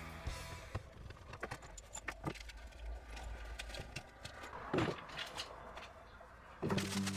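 Clicks, knocks and a light metallic rattle of jumper cables, clamps and small adapters being handled and packed into a fabric drawstring bag on a workbench. Music comes back in near the end.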